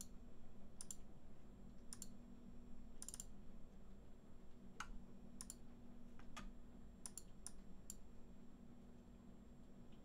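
Scattered clicks from a computer mouse and keyboard, about a dozen sharp ones, some in quick pairs and a quicker run around six to eight seconds in, over a faint steady low hum.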